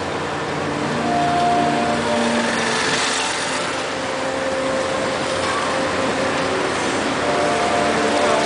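Steady city street traffic noise, with vehicle engines running past and a swell of brighter hiss about three seconds in.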